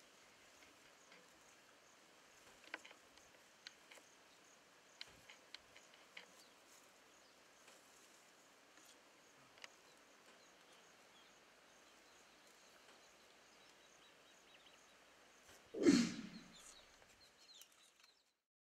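Faint outdoor background with a few scattered light clicks, then, about sixteen seconds in, a short, loud call from a young chimpanzee that falls in pitch.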